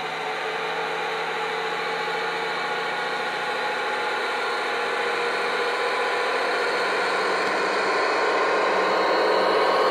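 Dapol Class 29 model locomotive's DCC sound decoder playing a diesel engine running, a continental engine recording chosen to resemble the Paxman Ventura, through the model's small speaker with some hiss. It grows steadily louder as the locomotive approaches.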